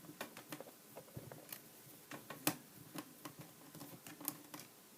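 Screwdriver backing a short screw out of an Acer Aspire 5742Z laptop's plastic screen bezel: faint, irregular light clicks and ticks, with a few sharper ones.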